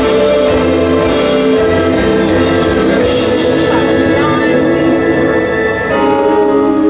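Live stage-show music: a band of drums, bass, guitar and keyboards playing held chords while a group of singers sings, with a chord change about six seconds in.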